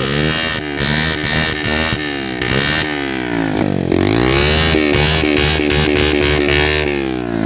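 Motorcycle engine revved through an aftermarket exhaust with its dB killer (baffle) removed. The pitch climbs and falls back in about two long sweeps, with a choppy, pulsing note at the lower revs.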